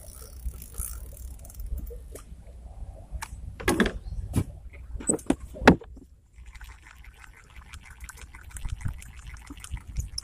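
A few sharp knocks and taps of handling gear in a wooden boat, then a spinning fishing reel being cranked, a fast, even ticking that starts a little past halfway.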